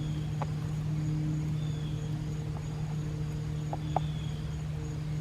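Outdoor ambience of insects chirping in a steady high tone over a constant low hum. A short falling chirp comes every couple of seconds, with a few faint clicks.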